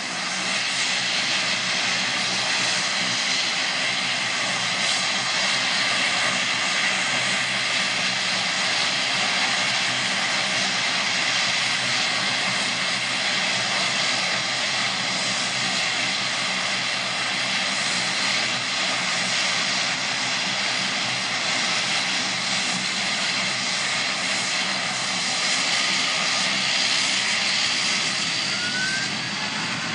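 Boeing 737's CFM56 turbofan engines running at taxi power as the airliner rolls past: a steady jet whine over an even rush of engine noise.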